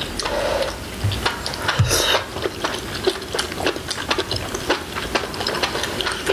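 Close-miked eating sounds: chewing mouthfuls of bulgogi hotpot, with many rapid small wet clicks and a brief slurp about two seconds in.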